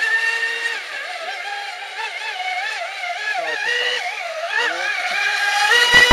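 Radio-controlled Miss Geico catamaran speedboat running at speed, its motor giving a high-pitched whine that rises and falls in pitch again and again as it races and turns. A brief low thump comes near the end.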